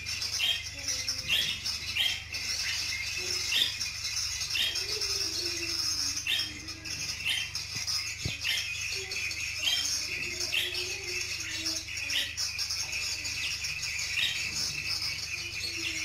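Budgerigars chirping and warbling, with short chirps about once a second over steady high chatter. The singing and whistling is the sign that the birds have settled in and become active.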